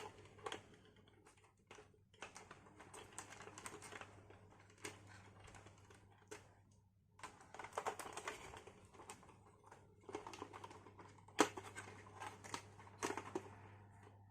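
Irregular small plastic clicks, taps and rustles from handling an RC truck's battery and its plastic battery compartment.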